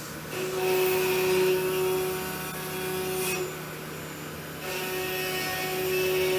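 C.R. Onsrud dual-head CNC router spindles cutting hardwood cutting-board stock with end mills. The cutting gets louder, with a steady pitched whine, twice: from about half a second in and again near five seconds in, each for about three seconds, easing off in between.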